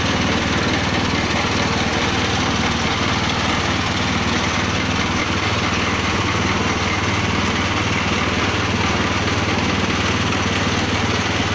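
Motor-driven grinding machine running steadily as it grinds feed material into a wet, porridge-like mash. A constant motor hum sits under a dense grinding noise.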